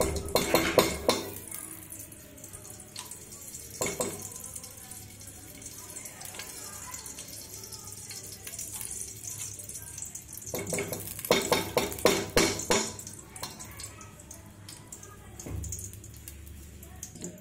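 A metal spoon knocks and scrapes against an aluminium pressure cooker as ghee is dropped into it, in two quick flurries of clinks at the start and about two-thirds of the way through. Between them there is a faint steady hiss of ghee melting and sizzling in the hot pot.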